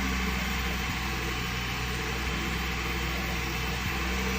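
Car engine idling steadily, its belt-driven accessories turning.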